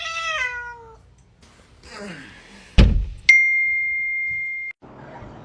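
A cat meows once with a falling pitch. About three seconds in comes a loud thump, then a high steady ringing tone that lasts about a second and a half and cuts off suddenly.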